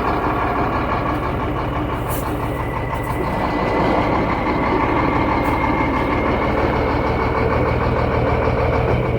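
Shacman diesel tanker truck's engine running in gear with a jacked-up wheel spinning free, picking up a little about three and a half seconds in. The run is a noise check that the mechanic takes to show a noisy differential.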